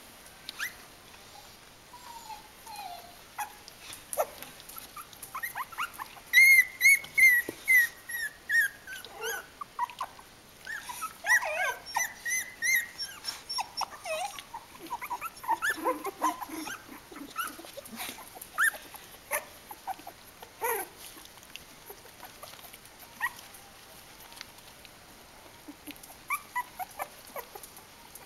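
Three-week-old Kooikerhondje puppies squeaking and whimpering in many short, high calls that glide in pitch, busiest through the middle and thinning out towards the end, with faint clicks and scrabbling among them.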